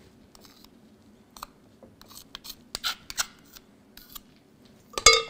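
Metal spatula scraping coffee buttercream off a metal spoon onto biscuits: a series of light scrapes and clicks, with a louder clink near the end.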